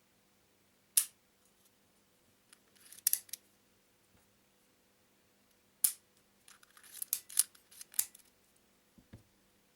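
Sharp clicks and short crackles of surprise eggs and their wrappers being handled: a single click about a second in, a little cluster around three seconds, then another click and a busier run of crackles and clicks, with a duller knock near the end.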